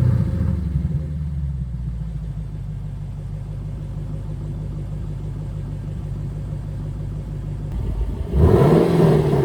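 Lexus LC 500's 5.0-litre V8 through a Power Craft Japan mid-pipe exhaust: the note drops from a start-up flare and settles into a steady low idle, then about eight seconds in the engine suddenly rises in pitch again and falls back.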